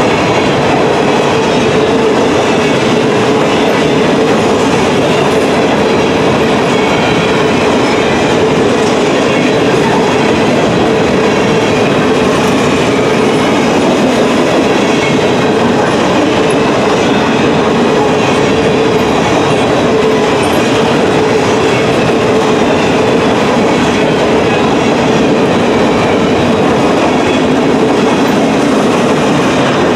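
A freight train of empty covered grain hopper cars rolls past at speed: a loud, steady rumble and rattle of car wheels on the rails that does not let up.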